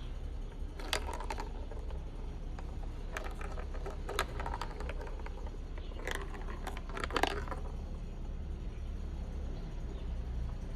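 Marbles clicking and rattling along a plastic marble run track in three short bursts, over a steady low hum.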